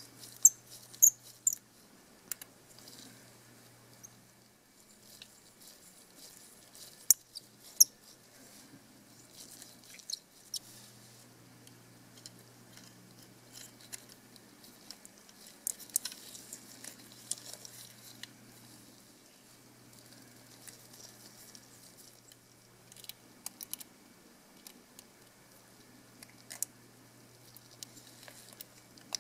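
Small clicks, taps and scratching as the parts of a disassembled Canon PowerShot A4000 compact camera are handled and fitted together: a small screwdriver on the metal chassis, plastic and metal parts seating, and gloved fingers rubbing on them. Sharp clicks are scattered throughout, the loudest in the first two seconds and again about seven seconds in.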